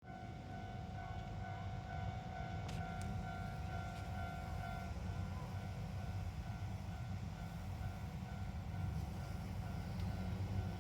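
Japanese railway level crossing warning bell ringing, its electronic tone repeating steadily, then stopping about five seconds in. A low rumble runs underneath throughout.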